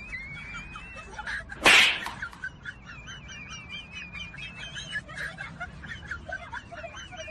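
Birds chirping and twittering throughout, with one short, loud hissing burst about a second and a half in.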